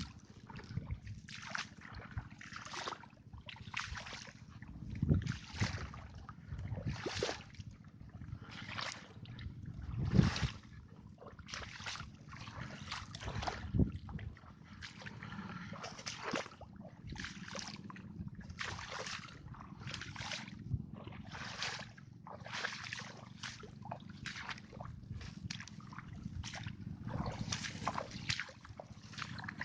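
Footsteps wading through shallow swamp water, each step a short slosh, a little more than one a second, with a few heavier splashes along the way.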